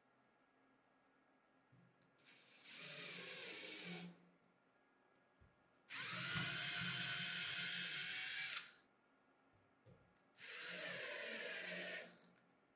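Cordless drill running in three short bursts. The middle, longest and loudest run bores a hole through an aluminium can pull-tab into wood, and the last drives a screw through the tab.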